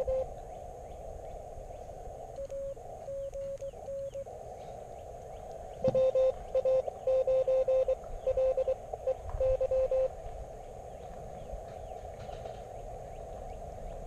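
Morse code (CW) from an Elecraft KX3 transceiver: a single steady tone keyed in dots and dashes over a constant hiss of band noise heard through a narrow filter. A fainter stretch of code comes a couple of seconds in, then a louder run from about six to ten seconds.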